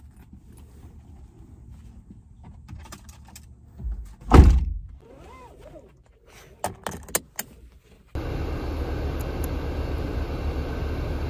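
Car door shut with a single heavy thump, then a few sharp clicks of a seatbelt being buckled. About eight seconds in the car's air-conditioning fan comes on, a steady rush of air.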